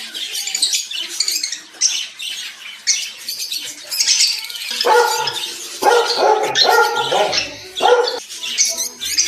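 A flock of African lovebirds and budgies chattering and chirping continuously. About five seconds in comes a run of about four louder, lower calls over roughly three seconds.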